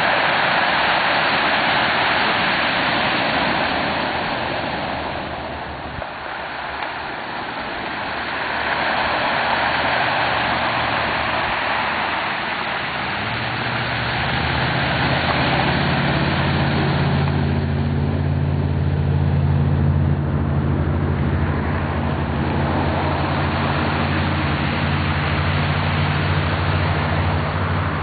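Steady rushing of surf breaking on a cobble beach. About halfway through, a large engine starts idling with a steady low hum that becomes the loudest sound.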